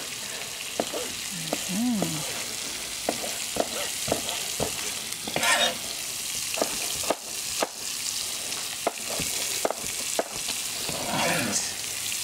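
Food sizzling steadily in a frying pan on a gas hob, with a knife tapping irregularly on a chopping board as tomatoes are sliced.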